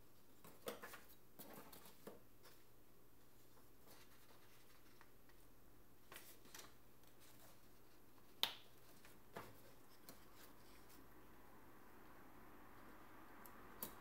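Near silence broken by a handful of small, sharp clicks and taps from smartphone parts (circuit board, plastic frame, small components) being handled and set down, the loudest about eight and a half seconds in.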